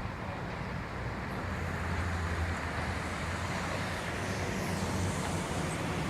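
Excavator's diesel engine running steadily with a low hum.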